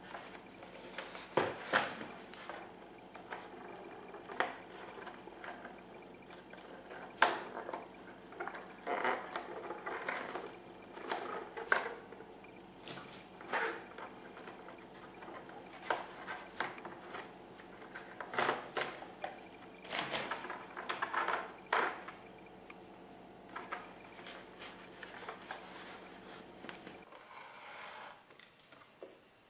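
Irregular handling noises from hands working on a foam model airplane fuselage: taps, rustles and light scrapes of foam and tape, some louder than others. A steady low hum runs beneath and stops about two seconds before the end.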